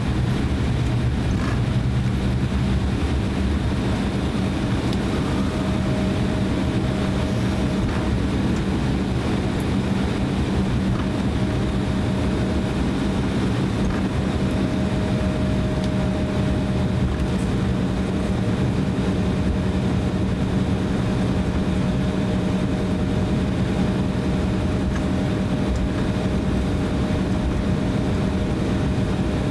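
Cabin noise of an Embraer E170 airliner taxiing, its GE CF34 turbofan engines at low power: a steady low drone with a fainter, higher steady tone held over it.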